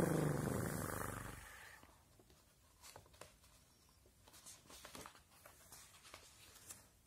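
A low, drawn-out voice-like sound that fades away over the first second and a half, followed by soft paper rustles and light taps as a hand brushes across a picture book's pages and turns a page near the end.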